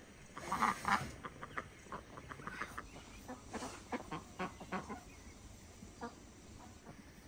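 Domestic ducks quacking: a loud cluster of calls about half a second in, then a run of short single quacks that thins out toward the end.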